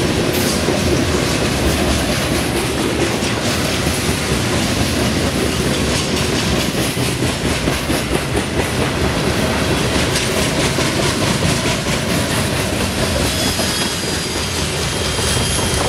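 Freight cars of a CSX coil train rolling past close by, wheels clacking steadily over the rail joints. A faint high wheel squeal comes in near the end as the last cars pass.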